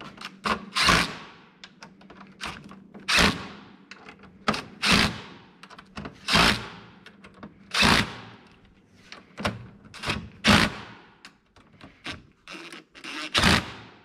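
Cordless impact driver driving screws home in a series of short bursts, about a dozen of them, each a second or so apart.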